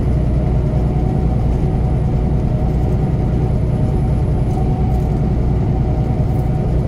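Semi truck's diesel engine and tyres droning steadily at highway cruising speed, heard from inside the cab.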